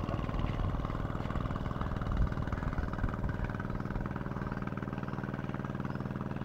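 An engine running steadily at an even speed, with one brief low thump about two seconds in.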